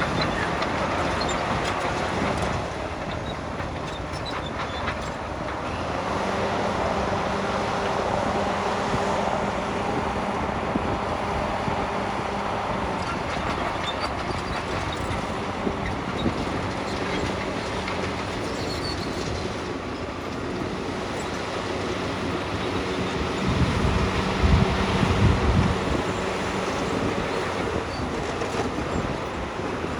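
Heavy diesel construction machine running steadily: an engine hum under a constant rattling clatter, with a louder low rumble for about two seconds near the end.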